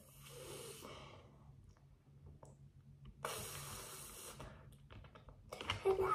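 Loose plastic Lego bricks clicking and rattling as a child picks through them and presses pieces together, with a louder rustle lasting about a second a little after three seconds in.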